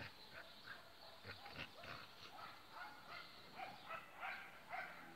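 A boxer and a puli at rough-and-tumble play, with faint short yips and barks coming in quick succession, more often in the second half.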